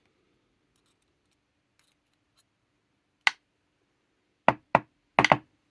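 Sharp clicks from the parts of a dismantled disc detainer padlock being handled: one at about three seconds, then four in quick succession near the end.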